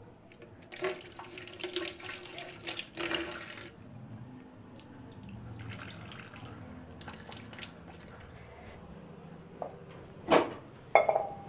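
Water poured from a glass into an open pressure cooker, splashing for about three seconds, then quieter handling sounds and two sharp knocks near the end.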